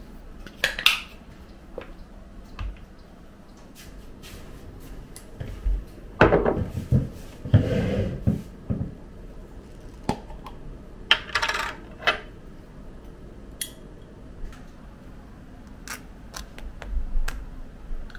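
Kitchenware being handled: scattered clinks and knocks of dishes and utensils, with a busier stretch of clatter about six to nine seconds in and a few more knocks around eleven seconds.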